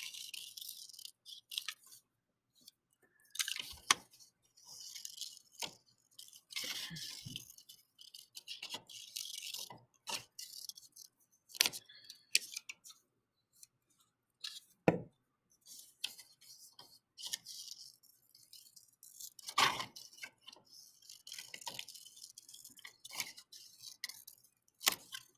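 Scissors cutting paper, with the paper rustling as it is turned: faint, irregular snips and clicks between short stretches of rustle.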